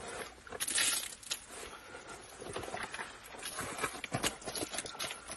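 Rustling, crinkling and scuffing of a wet waterproof wader boot being handled and pulled at, with scattered clicks. There is a louder rush of noise about a second in.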